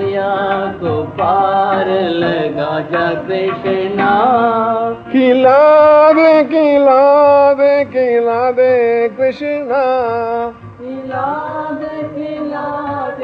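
Hindi devotional kirtan to Krishna, a voice singing a drawn-out, ornamented melody line. About five seconds in the singing grows louder and brighter, and it drops back a little after ten seconds.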